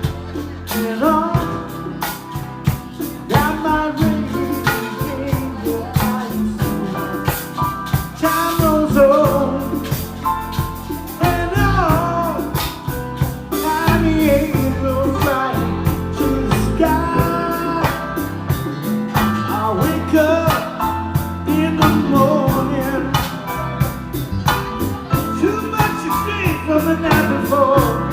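Live band playing a song, with a singer over a steady drum beat.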